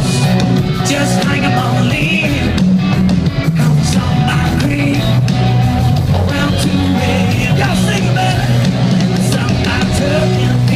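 Live country-rock band playing loud and steady, with electric guitars, bass and drums under a male lead singer, heard from within the audience.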